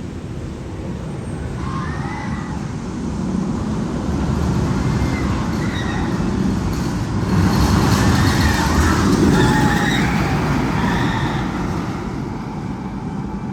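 Magnum XL-200 roller coaster train rumbling on its steel track, swelling to a peak and easing off, with high wavering squeals over the rumble.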